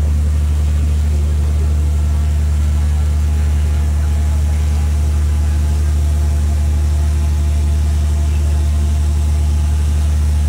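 A running motor's steady low hum, with faint voices underneath.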